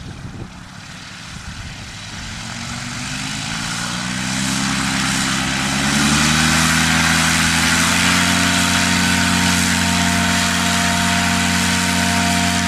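Two-seat paramotor trike's engine and propeller running up to takeoff power. Pitch and loudness climb over the first several seconds, then hold steady at full throttle as the trike rolls over the grass.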